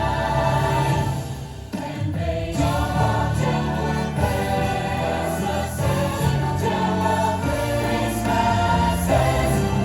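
Christmas parade music with a choir singing, dipping briefly about two seconds in.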